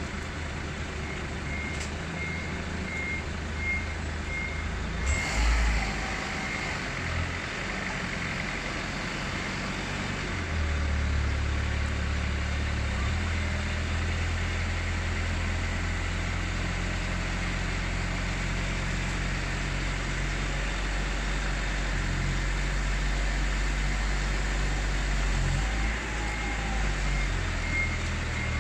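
Low rumble of a running vehicle engine that swells and fades, with a high beep repeating about twice a second for the first few seconds and again near the end. A sharp knock about five seconds in.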